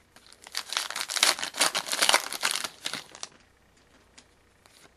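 Foil wrapper of a hockey card pack crinkling and tearing as it is opened, lasting about three seconds.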